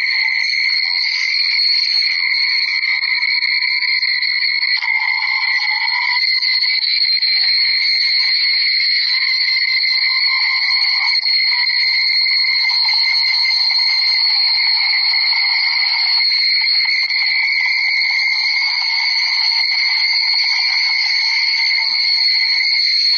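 An enormous number of sneeze recordings stacked on top of one another, merging into a loud, steady wall of sound with a constant high-pitched ring and no single sneeze standing out.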